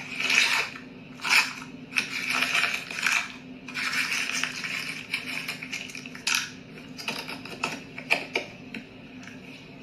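Dry dog kibble being scooped by hand and with a plastic cup, the pellets rustling and rattling in bursts. Later a few separate sharp clicks follow as single pieces drop into the cup.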